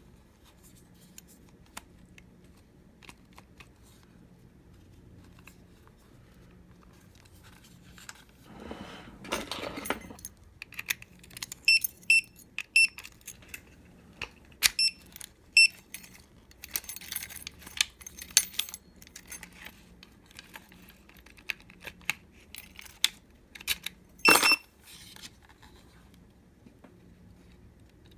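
Hyper Tough digital keypad deadbolt being handled and operated: metal clicks and rattles of the lock hardware, and a run of short, high electronic beeps from keypad presses. There is a brief noisy rasp about a third of the way in and a louder click with a beep near the end.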